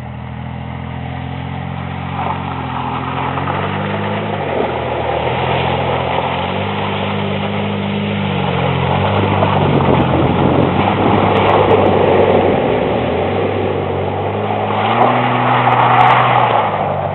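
1992 Ford Explorer's 4.0-litre V6 engine revving as the truck drives through a muddy puddle, water splashing around it. The engine note rises and falls several times.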